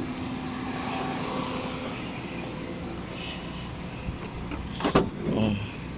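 Steady vehicle hum, then about five seconds in a single sharp click as the outside handle of a Suzuki Every DA64V's rear sliding door is pulled and its latch releases.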